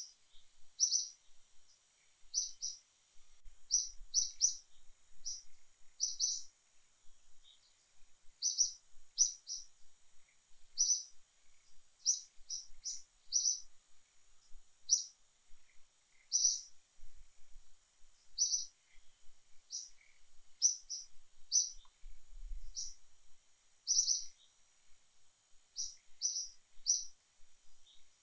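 A bird chirping repeatedly: short high notes, often in quick pairs or threes, coming every second or two, over a faint steady high-pitched hiss.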